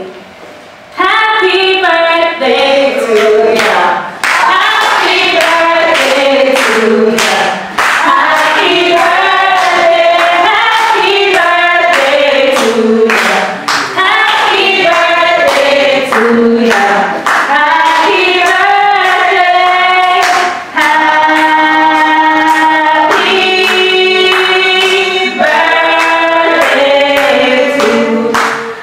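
Amplified singing of a song, a woman on a microphone with other voices joining, starting about a second in, with regular handclaps keeping time.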